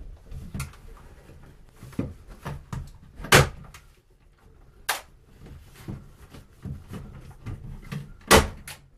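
Irregular knocks and clatters of hands-on work with tools and materials at wooden wall framing, with two louder sharp knocks, one about a third of the way in and one near the end.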